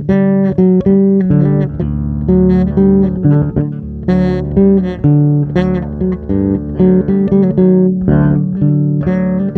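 Guitar playing: plucked notes struck about twice a second over low bass notes, each ringing briefly before the next.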